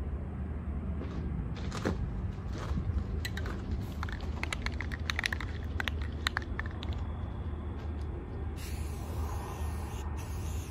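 Spray-paint can being shaken, its mixing ball rattling in a run of sharp clicks, then a steady hiss of spray paint from about nine seconds in, over a low rumble.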